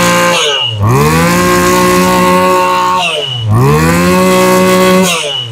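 Stihl FS2650 brush cutter engine revved hard with the throttle. It is held at full revs, drops back about half a second in, climbs again and holds for about two seconds, drops again about three seconds in, then revs up once more and eases off near the end. A short high squeal sounds each time the revs start to fall.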